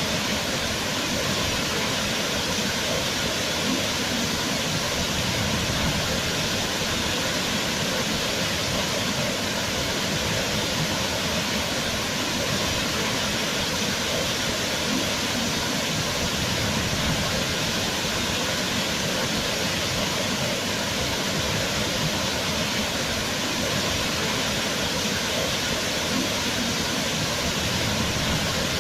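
Waterfall: water falling and splashing in a loud, steady rush.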